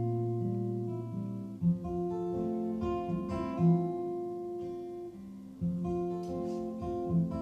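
Live acoustic guitar music: strummed chords ringing in an instrumental passage between sung lines, the chord changing every second or so.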